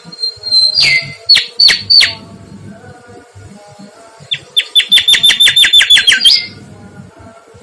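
Mangrove whistler singing: three loud, sharp whistled notes, then a few seconds later a fast run of about a dozen notes that ends in a short rising flourish.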